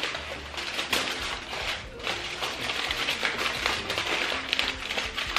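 Aluminum foil crinkling and rustling continuously as a sheet is lifted and its corners gathered and twisted shut around a parcel of batter.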